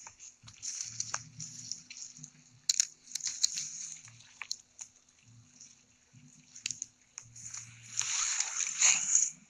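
Rustling of grass and handling knocks as a phone is carried through swamp grass, with a louder, longer rustle about eight seconds in.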